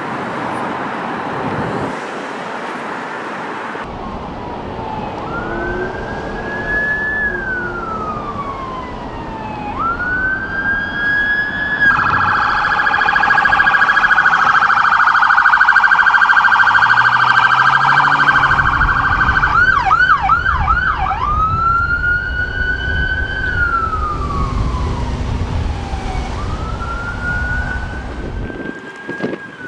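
Electronic siren of an unmarked Chevrolet Tahoe police SUV responding code 3. It sounds slow wail sweeps that rise and fall, switches to a loud, very fast pulsing tone for several seconds, gives a brief quick yelp, then goes back to the wail while the SUV's engine rumbles past close by.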